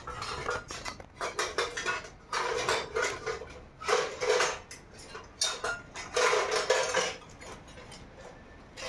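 Pots and dishes clattering and clinking in repeated bursts, several clusters of sharp knocks over the whole stretch.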